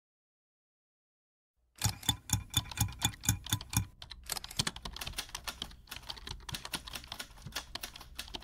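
Silence, then about two seconds in a rapid run of clicks like typing on a keyboard, an even rhythm at first that turns quicker and more uneven from about four seconds in.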